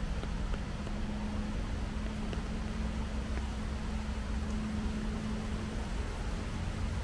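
Rainy outdoor ambience: a steady hiss of rain with a low rumble underneath and a faint steady hum, and a few light ticks of drops.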